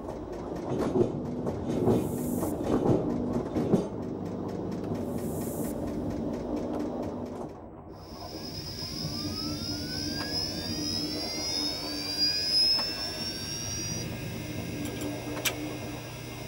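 Train sound effect: a rhythmic clatter over a low rumble, with bursts of steam hiss every few seconds. About halfway it gives way to a sci-fi effect of several rising whines climbing together, and a low steady hum comes in near the end.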